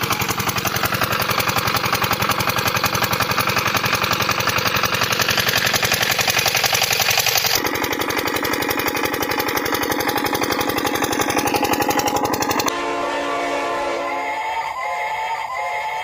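Miniature engine of a model diesel water-pump set running steadily with a fast, even knock, pumping water. About three-quarters in it cuts off suddenly to the pitched, whistle-like tones of a toy train.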